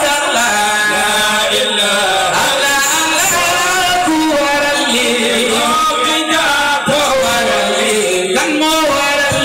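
Islamic devotional chanting by male voices, several voices singing together in a wavering, gliding melody.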